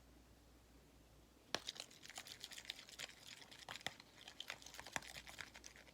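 A utensil stirring homemade slime mixture in a bowl. About a second and a half in, a quick, irregular run of small clicks and scrapes starts.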